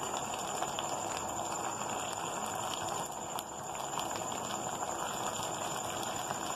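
Thick chana dal and jaggery filling simmering in a steel pan on a gas flame, a steady bubbling hiss with scattered small pops.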